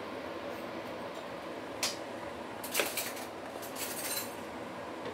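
Chicken stew simmering in a wok with a steady low hiss. A few light clinks and scrapes of kitchen utensils come about two, three and four seconds in.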